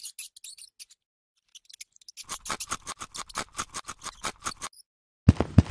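Quick runs of sharp, dry clicking and scratching, about six ticks a second, like a guinea pig's small feet scurrying on sand. Near the end a new run of heavier taps with a low thud in each begins.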